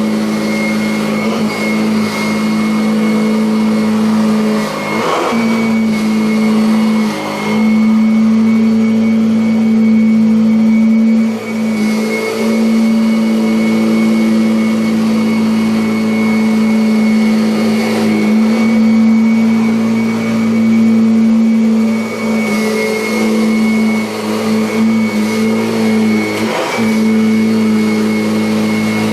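Kirby Avalir 100 upright vacuum cleaner running on carpet: a steady motor hum with a thin high whine, the pitch dipping briefly about four times.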